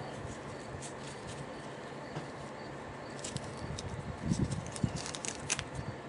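Hands working apart an old taped power-cord splice: scattered light clicks and ticks, mostly in the second half, with a soft thump a little past the middle, over a steady hiss.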